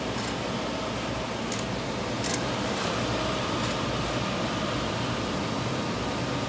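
HP Scitex FB700 UV flatbed printer running a nozzle test print: a steady whir of fans and the moving print carriage, with a few faint high ticks in the first half.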